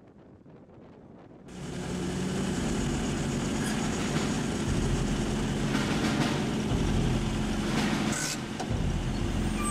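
Military jeep engines running close by. It is quiet for the first second and a half, then the engine noise comes in suddenly and loud and stays steady, with a few brief rattles.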